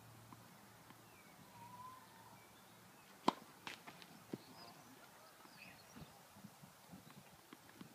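A tennis ball making one sharp pop about three seconds in, followed within a second by a couple of softer knocks. Faint bird chirps can be heard.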